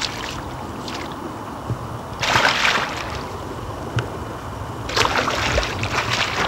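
A large hooked pike thrashing at the surface, splashing and sloshing in two loud bursts, about two seconds in and again about five seconds in, over a steady low rumble.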